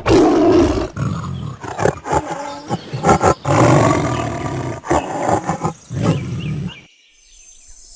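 Tiger roaring and growling in a run of loud, deep calls, one after another, which cut off suddenly about seven seconds in. A faint, steady high-pitched chirring follows.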